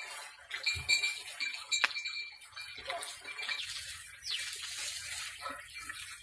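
Custard apple tree leaves and branches rustling, with scattered clicks and snaps, as a man climbs through it to pick fruit. High whistles falling in pitch come in about four seconds in.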